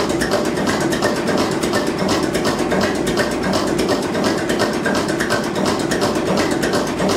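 Deutz RV6M 536 slow-running six-cylinder marine diesel engine running, heard close up: a steady low rumble under a dense, rapid clatter of valve gear.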